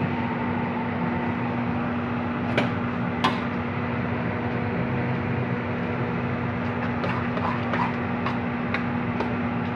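A metal utensil knocking and scraping against a steel wok as stir-fried noodles are tossed: a couple of knocks about three seconds in and several more near the end. Under it runs a steady kitchen hiss with a low hum.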